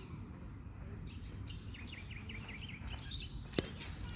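Bird chirping: a quick run of short, repeated calls about halfway through, with a few fainter chirps around it, over a steady low rumble. A single sharp click comes near the end.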